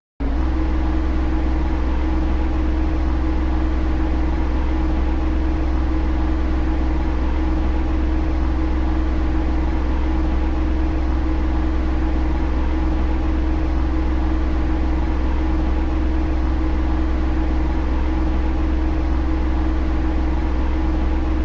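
Train running, a steady drone: a constant low hum and a held tone over an even rushing noise, with a faint beat repeating about once a second.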